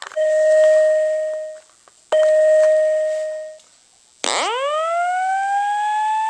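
System Sensor SP201R fire alarm speaker sounding an alarm tone: two steady beeps, each about a second and a half long, then, about four seconds in, a slow rising sweep.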